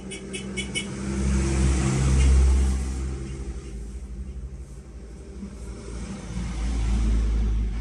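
Motor vehicle engine rumble, swelling about a second in, easing, then swelling again near the end, like vehicles passing close by.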